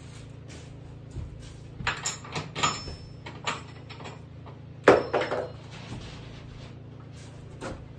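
Clatter and knocks of objects being handled, a cluster of them about two to three and a half seconds in and the loudest knock about five seconds in, over a steady low hum.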